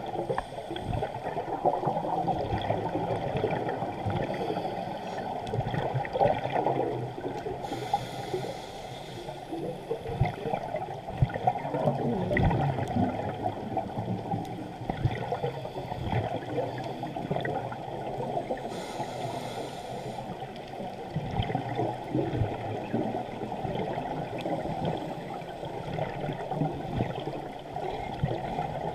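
Muffled underwater noise heard through a GoPro's waterproof housing: a steady gurgling of water and bubbles from the diver's scuba breathing, with two brief hisses, about eight and nineteen seconds in.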